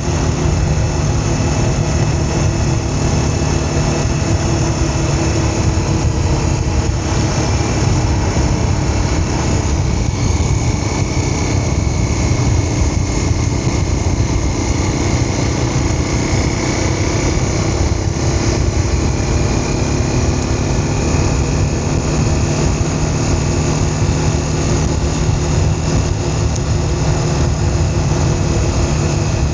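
A vehicle's engine running steadily while under way, with a continuous low drone and faint steady pitched tones that drift slowly in pitch.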